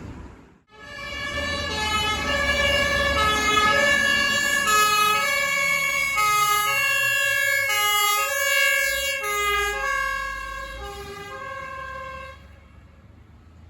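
Austrian fire engine's two-tone siren horn sounding on an emergency run, alternating high and low chords about once every one and a half seconds, over a low engine rumble. It starts about half a second in and drops away sharply about twelve seconds in.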